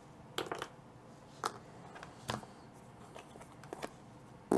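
Trading cards being handled on a tabletop: a few short, soft taps and slides, scattered and quiet.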